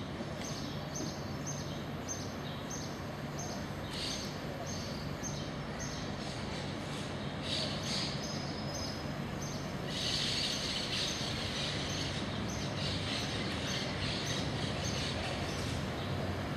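Birds chirping in short bursts, busiest from about ten seconds in, with a brief whistle near the middle, over a low steady street hum.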